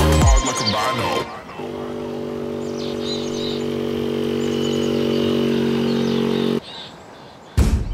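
A 49cc moped engine running at a steady pitch, growing slowly louder as it approaches, with faint birdsong above it; the engine sound cuts off abruptly near the end. Electronic music fades out just after the start, and music starts again at the very end.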